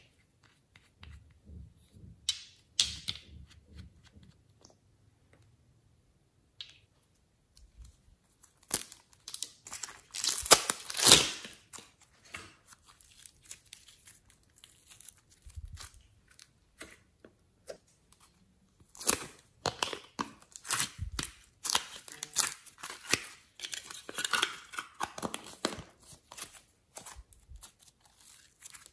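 Soft slime mixed with clay being stretched and pulled apart by hand, giving sticky crackling and tearing sounds. A few light clicks come first, the loudest stretching is about ten seconds in, and a long run of crackles follows in the second half.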